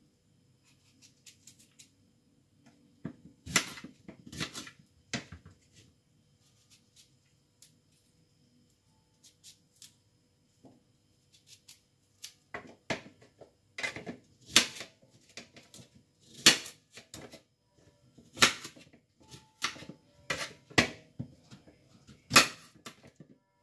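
Kitchen knife cutting green apple pieces on a plate: irregular sharp clicks and knocks of the blade through the fruit and against the plate. A few come about three to five seconds in, then a quiet stretch, then they come more often from about twelve seconds on.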